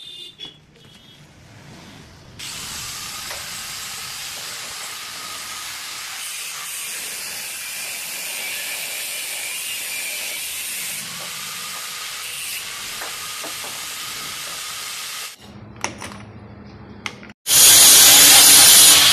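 Pillar drill boring through a thick steel plate: a steady hissing cut with a faint whine that starts a couple of seconds in and stops about thirteen seconds later. Near the end there is a short, much louder rushing noise.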